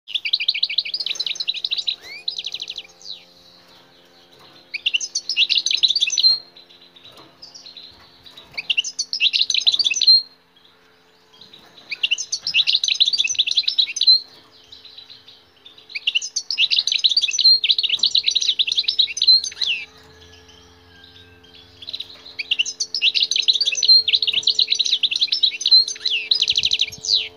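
A wild-caught European goldfinch singing: six phrases of rapid, high twittering, each two to four seconds long, with pauses of a second or two between them. A faint steady hum lies underneath.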